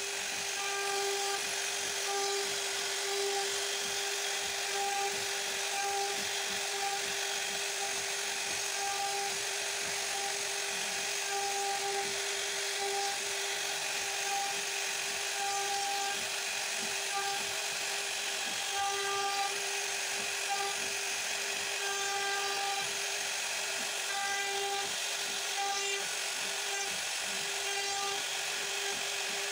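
CNC router spindle running with a steady high whine as its bit routs grooves into a wooden board, with a hiss of cutting noise over the whine.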